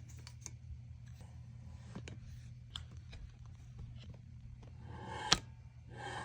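Scattered light clicks from an Accu-Tac rifle bipod being handled and inspected, with one sharp click about five seconds in, over a low steady hum.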